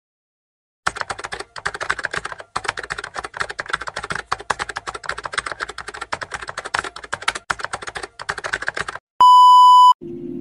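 Rapid typing on a computer keyboard, a dense clatter of keystrokes starting about a second in and lasting about eight seconds. Near the end comes a short, steady test-tone beep from a TV colour-bars screen.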